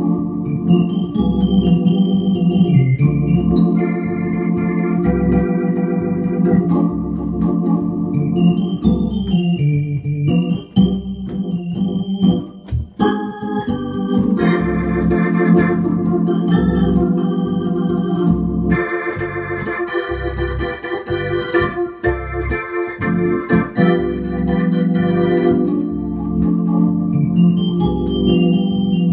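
Hammond SK organ playing a song: sustained chords and a melody line over a steady pulsing bass, the chords growing fuller and brighter about halfway through.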